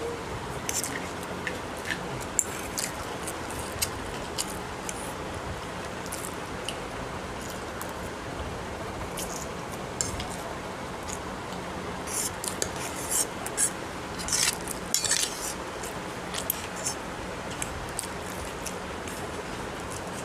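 Eating chow mein with a metal fork: scattered short clinks and scrapes of the fork against the plate, busiest about two-thirds of the way through, with mouth sounds of eating, over a steady background hiss.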